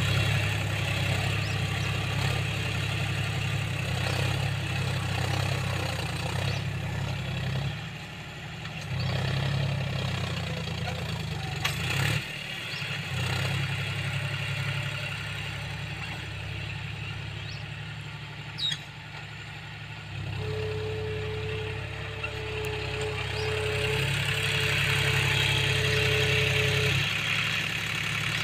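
John Deere tractor's diesel engine running under changing load as it drags a rear blade through soil, its note rising and falling. In the second half a steady whine sounds over the engine for several seconds.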